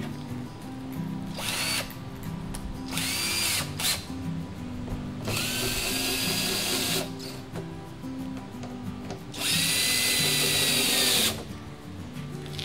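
Cordless drill/driver driving the fasteners that mount a hinged lid onto a poly tank's support ring: four bursts of whine, each rising in pitch as the motor spins up. The last two bursts are longer, and the last is the loudest. Background music with a steady bass line plays underneath.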